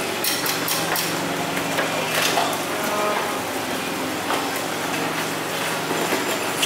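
Busy market-hall background: a steady low hum under an even hiss of ambient noise, with scattered knocks and clicks.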